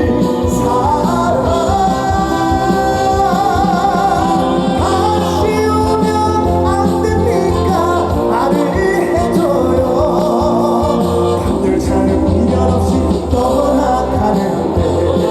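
Live band playing a trot song through the stage sound system, with a steady bass and drum beat and a wavering lead melody on top.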